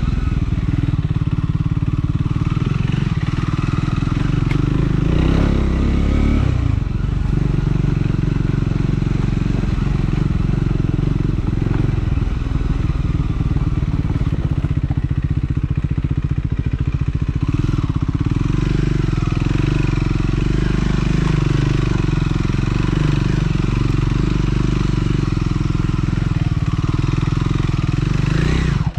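Triumph Scrambler 400 X's single-cylinder engine running steadily under way on the ride, its note shifting about six seconds in and again near eighteen seconds.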